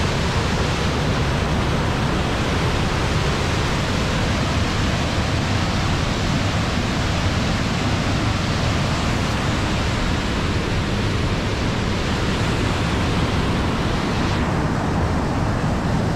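Avalanche Creek's whitewater rushing through a narrow rock gorge: a loud, steady roar of water, its hiss dulling a little near the end.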